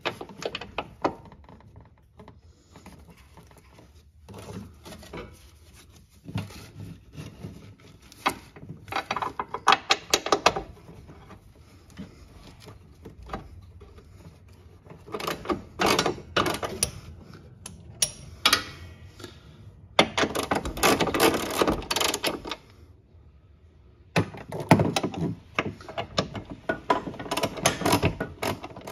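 Hand ratchet wrench clicking in several bursts of a few seconds each, with handling knocks between them, as the carrier-bracket bolts are run in.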